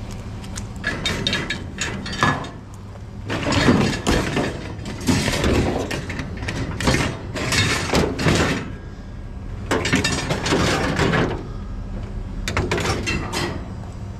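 Scrap metal clattering and scraping as pieces such as a wire rack are shoved and shifted around a pickup truck bed, in about six rough bursts, over a steady low hum.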